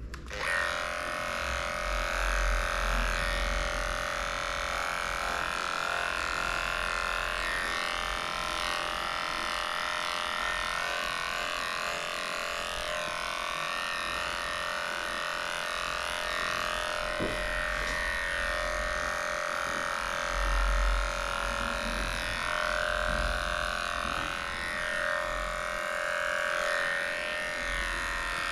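Cordless electric dog clipper switched on and running steadily, shaving through a matted coat, its hum wavering slightly as the blade works into the fur.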